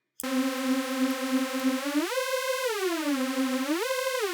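A sustained Native Instruments Massive synthesizer note, bright and buzzy with many overtones, swept up an octave and back down by a macro control tied to oscillator pitch and filter cutoff. It holds low, glides up about two seconds in, holds, falls back, then rises and falls again more quickly near the end: the home-made 'uplift' riser effect.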